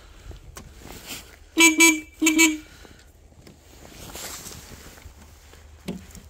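Electric horn of a K-750 motorcycle giving two short honks, about one and a half and two and a quarter seconds in, the first broken into two quick pulses. A light knock near the end.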